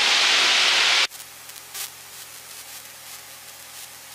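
A loud burst of hiss from the open voice-activated headset intercom microphone, lasting about a second after the instructor's words and cutting off suddenly as the mic closes. After that comes the faint, steady drone of the light plane's engine in the cabin.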